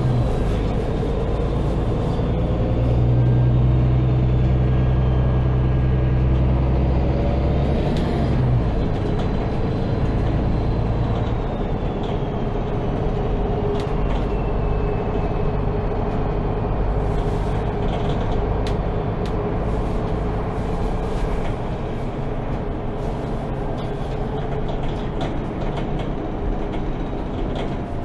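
Passenger-cabin sound of a MAN Lion's City G articulated city bus under way: a steady low engine and drivetrain drone with a faint high whine that slowly rises and falls. The deepest engine note drops away about eight seconds in, and a few light rattles and clicks follow.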